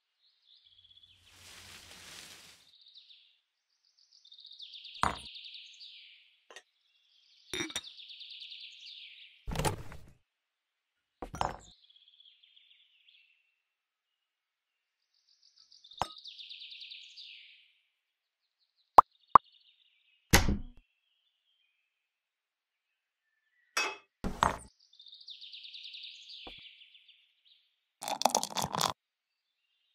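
Light clicks, clinks and knocks of tiny toy kitchenware: mugs, a milk pan and a tray being picked up and set down, about a dozen times with pauses in between. Short stretches of high chirping fall between the knocks, and there is a closer cluster of clinks near the end.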